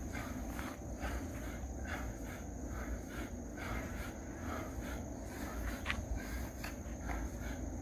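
A person breathing in a quick, even rhythm while doing squats, one soft puff of breath every half second or so, with a steady high-pitched tone running underneath.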